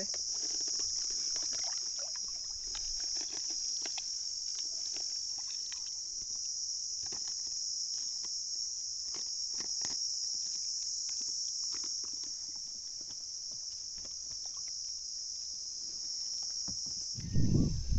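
A steady, high-pitched insect drone runs under light ticks and rustles from the nylon gill net being handled. A loud low rumble comes in near the end.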